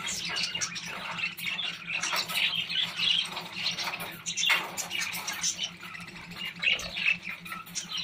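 A flock of budgerigars chattering, with rapid chirps and short squawks overlapping throughout.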